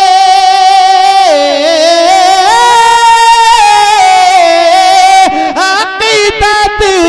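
A naat reciter's voice holding a long drawn-out vowel without words, sliding down and back up in slow melodic turns. Near the end it breaks into quicker ornaments.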